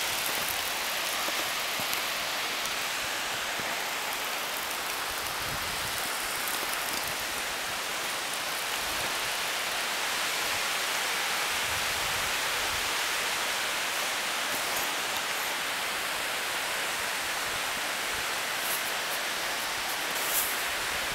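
Steady rush of running water, an even hiss with no change over the whole stretch.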